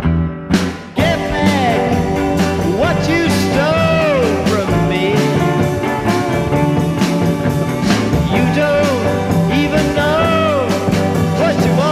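Psychedelic rock band recording with a full band playing and a lead line that slides up and down in pitch. There is a brief drop in loudness near the start before the band comes back in.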